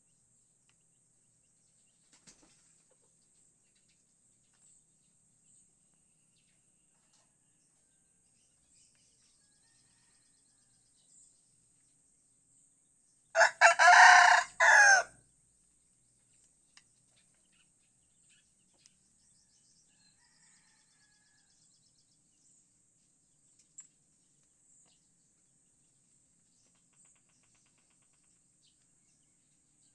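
White rooster crowing once, a single loud cock-a-doodle-doo of about a second and a half about halfway through, broken into a short first note and longer drawn-out notes.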